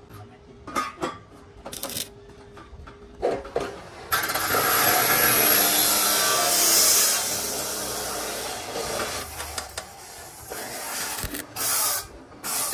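Stick-welding arc on a steel square-tube joint: a loud, dense crackling hiss starts about four seconds in, is strongest for about three seconds, then carries on more quietly and dies away, with a short burst near the end. Light knocks of the tubes being handled come before it.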